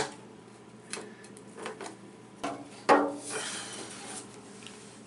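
Stainless steel double sink being handled and turned over: a few light knocks, then a louder knock about three seconds in that rings briefly like struck sheet metal, followed by a short rustle.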